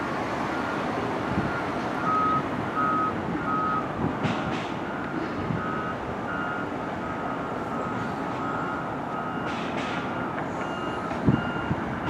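Backup alarms on construction vehicles beeping. At least two alarms at slightly different pitches overlap, about one beep every 0.7 s, loudest between two and four seconds in, over a steady din of site and street noise.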